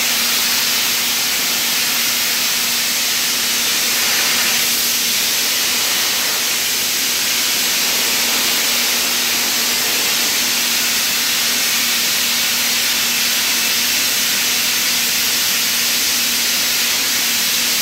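Abrasive blasting nozzle running continuously, a steady hiss of air and grit striking rusted truck body metal to strip the rust, with a low steady hum underneath.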